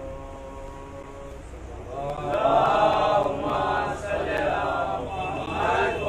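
A single voice chanting a melodic religious recitation. It opens on a held note, then about two seconds in grows louder with a line that rises and falls.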